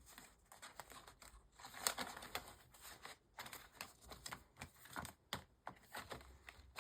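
Paper planner inserts being handled and sorted: scattered light taps, clicks and soft paper rustles.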